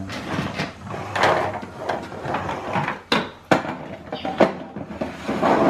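Plastic toy cars and pieces of a plastic toy racetrack clattering and knocking as they are handled, with a few sharp knocks, the loudest about three seconds in.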